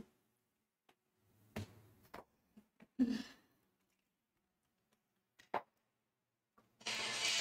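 Quiet room with a few faint knocks and a breath or sigh as a person moves about off-camera; a steady hiss comes in near the end.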